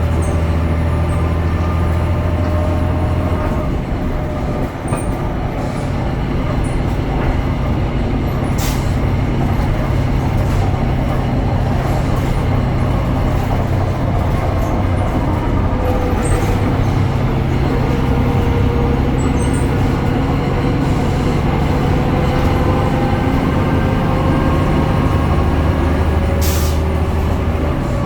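BredaMenarini Avancity Plus city bus's Deutz Euro 5 diesel engine and ZF automatic gearbox running on the move. The engine note changes about three seconds in, a whine rises slowly over the middle stretch, and the deep low hum returns near the end, with a couple of short clicks along the way.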